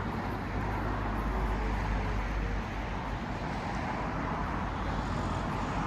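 Steady city street traffic noise, with a heavier low rumble in the first couple of seconds that eases off.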